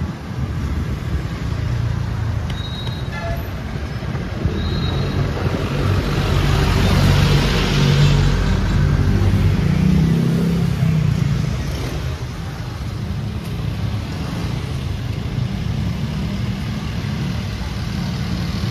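Street traffic: motor vehicles running along the road, with a steady engine drone. It gets louder from about six seconds in as a vehicle passes close, then eases off.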